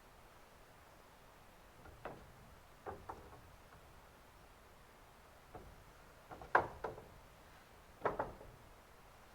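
Scattered knocks and taps from carpentry on a house frame, some single and some in quick pairs or short runs, irregularly spaced and ringing slightly; the loudest come about two-thirds of the way in.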